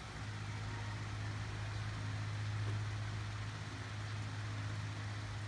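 Steady low electrical hum with an even hiss over it, the continuous background drone of a running fan or appliance.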